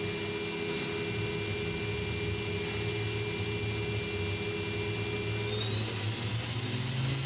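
Daewoo Mynx 500 vertical machining center spindle running at 6,000 RPM with a steady high whine. About five and a half seconds in, the whine rises in pitch as the spindle speeds up toward 8,000 RPM, then holds at the higher note.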